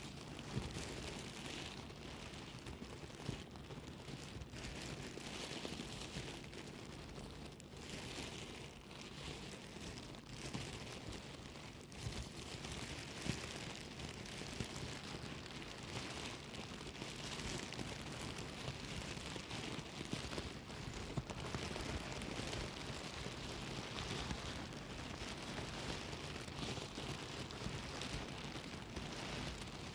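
Plastic bag rustling and crumpling continuously, a dense crackle of small crinkles with sharper crackles scattered throughout.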